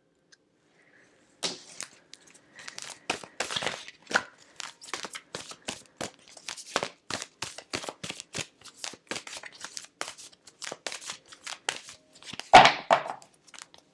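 Tarot cards being shuffled and handled: a quick run of papery flicks and slaps, a few a second, with a louder rustle near the end.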